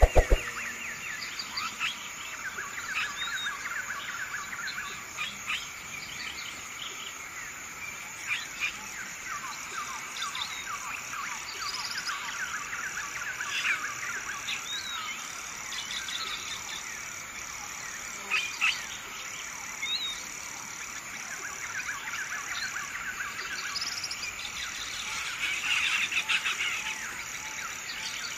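Chorus of chirping animals: many short, quick chirps keep coming over a steady high trill, louder for a moment a little before halfway and again near the end. A few sharp clicks at the very start.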